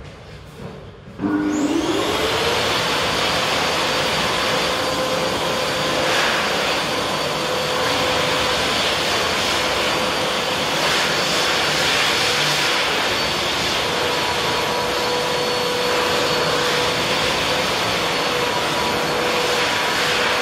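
Wall-mounted electric hand dryer switching on about a second in. Its motor whine rises quickly to a steady pitch, then it runs with a loud, steady rush of blown air.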